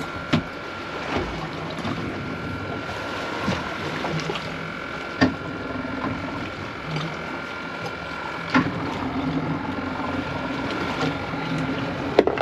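Twin Yamaha 200 hp outboards idling with a steady hum and whine, their low note coming and going as they shift in and out of gear to hold the boat on the spot. A few sharp clicks and knocks stand out over the engines.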